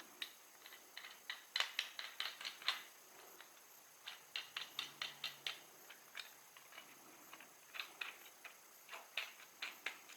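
Bursts of sharp clicks and taps, several a second in three clusters, from small hard parts being handled and knocked together.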